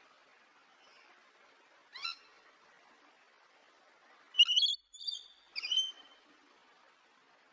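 Rainbow lorikeet calling: one short call about two seconds in, then three louder high-pitched calls in quick succession past the middle.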